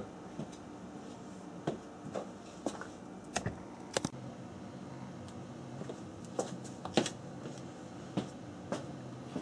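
Scattered light metallic clicks and knocks, about a dozen at irregular intervals, as a metal slug is handled and mounted in a lathe chuck, over a steady low hum.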